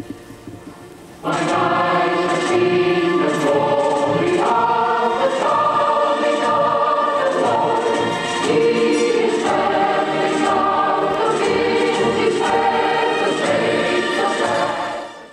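Choir singing in loud, sustained chords, entering suddenly about a second in and fading away at the very end.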